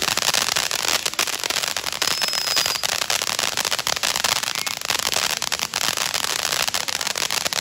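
Ground fountain fireworks spraying sparks: a steady loud hiss thick with rapid crackles and pops, with a short high whistle just over two seconds in.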